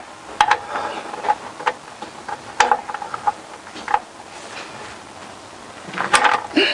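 Socket ratchet clicking in short, irregular strokes as it winds out an engine sump plug that has just been cracked loose, with a quicker run of clicks and clinks near the end.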